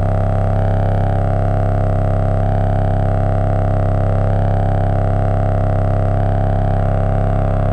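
Modular synthesizer playing a steady, low, droning chord of many held tones, with slight shifts in the upper tones.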